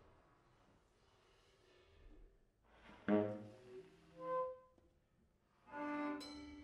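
Improvised saxophone playing in a sparse passage. After a few soft, breathy seconds, a sharp note is attacked about three seconds in, then a short clear held note follows. Near the end a loud, rasping note sounds with several tones at once.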